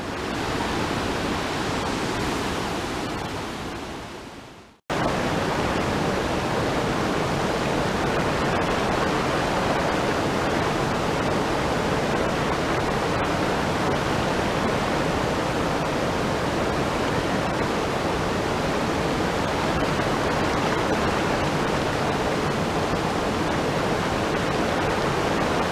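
Rapids and a small waterfall on a rainforest stream, a steady rush of water running high and brown after rain. The sound fades away about four seconds in and comes back abruptly a moment later.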